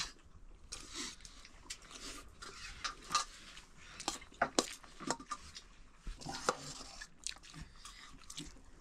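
People eating a meal: irregular light clinks and scrapes of dishes and utensils, mixed with chewing.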